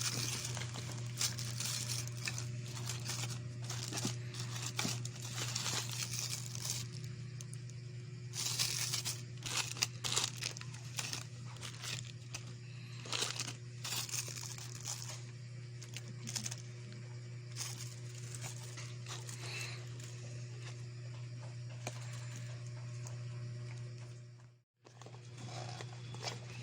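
Packaging being handled during an unboxing: irregular crinkling, rustling and tearing, with scattered small clicks. A steady low hum runs underneath, and the sound cuts out briefly near the end.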